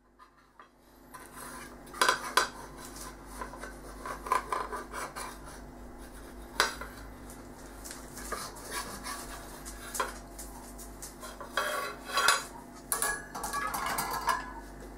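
Clinks, knocks and scrapes of a metal palette knife and a cake tin's base against a china plate and a wire cooling rack as a cake is worked off the tin base. There are sharp knocks about two seconds in and a few more later, with scraping near the end.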